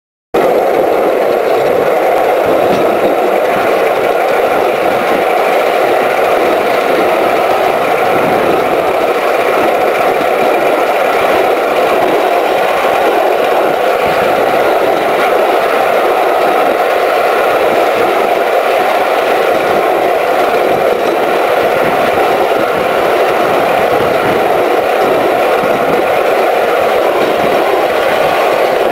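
Small live-steam locomotive running along a narrow-gauge track, heard from its footplate: a loud, steady rush with a continuous rattle.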